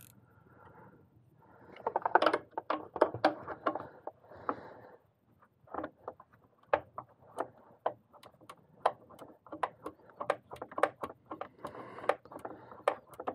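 Hand tools clicking and clinking as a socket ratchet works small bolts loose under the hood. A dense clatter comes about two seconds in, then separate sharp clicks every half second or so.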